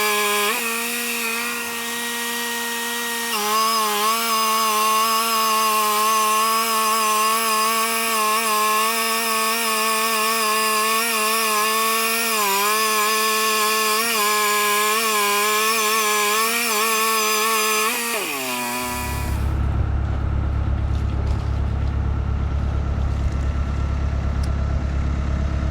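Wood-Mizer portable sawmill cutting a hickory log, its engine running steadily at high speed as the band blade goes through the wood, with brief dips in pitch. About three quarters of the way through, the pitch falls as the engine throttles down to a low idle, marking the end of the cut.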